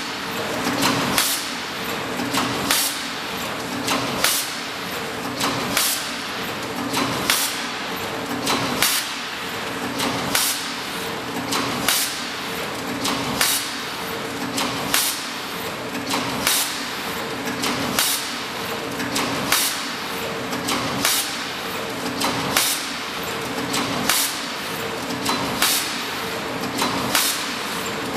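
Horizontal roll-film pouch forming, filling and sealing machine running through its cycle. A sharp clack about every one and a half seconds sits over a steady mechanical noise, and a low two-tone hum rises and falls in the same rhythm.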